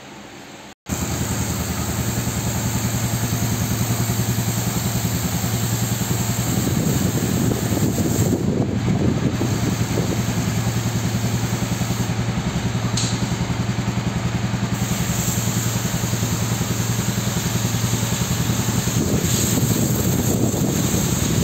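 Royal Enfield Hunter 350's single-cylinder engine running steadily at idle in gear, turning the rear wheel and drive chain on a stand for chain lubrication. It cuts in abruptly just under a second in.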